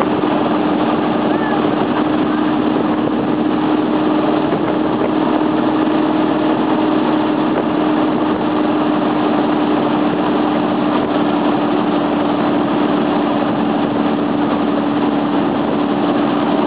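Motorboat engine running steadily at speed while towing, a constant even drone, with the rush of the churning wake.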